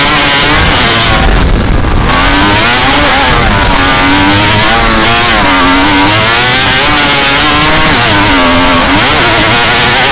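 Autocross buggy's 250 hp snowmobile engine at race pace, heard from onboard. The revs climb and fall again and again as the buggy accelerates and lifts off, with a brief dip about a second and a half in.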